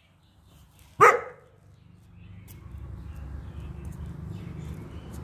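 A tan-and-white dog barks once, a single short bark about a second in. From about two seconds in, a steady low rumble builds underneath.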